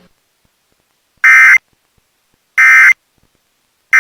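Emergency Alert System end-of-message code: three short bursts of data tones, about a second and a quarter apart, the last starting near the end. They signal that the alert message is over.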